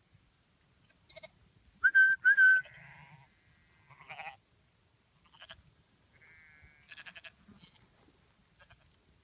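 Sheep bleating across an open pasture, with two short, loud whistle notes about two seconds in.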